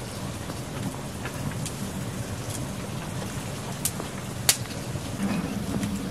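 Small wood cooking fire crackling, with scattered sharp pops over a steady low rumbling hiss; one louder pop about four and a half seconds in.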